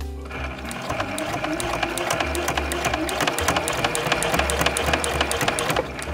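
Domestic electric sewing machine running at a steady speed while topstitching, a rapid even rattle of needle strokes that starts just after the beginning and stops shortly before the end.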